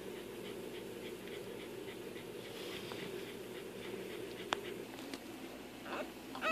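Pembroke Welsh Corgi bitch panting rapidly in labour, a steady run of quick breaths while she works to deliver a pup. A single sharp click sounds about four and a half seconds in.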